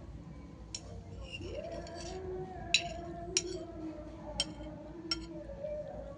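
Cutlery clinking against a plate as fried rice is scooped up: five sharp clinks spread over a few seconds.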